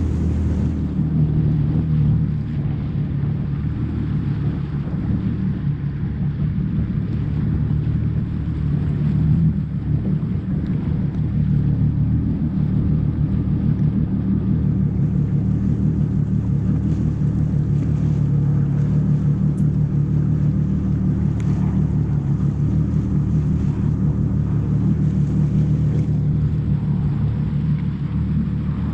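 Jet ski engine running steadily under way, a constant low engine hum.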